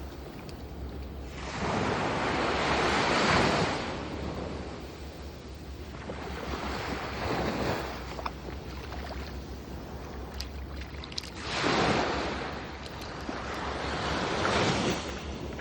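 Sea waves washing onto the shore: four swells of surf, each building and falling away over a couple of seconds. A steady low wind rumble on the microphone runs underneath.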